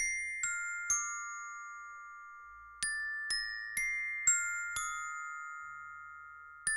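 Instrumental song intro on a bell-like mallet instrument, with no singing. Single ringing notes each die away, in short phrases: three notes, a pause, five notes, then another pause and one more note near the end.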